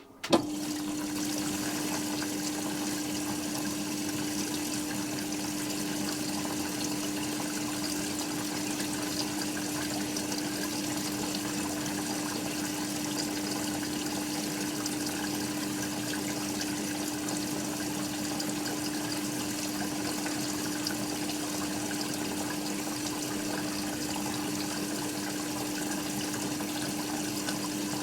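Hoover Quattro washing machine's drain pump switching on with a sudden click and running steadily: a constant hum under the gush of water being pumped out of the drum.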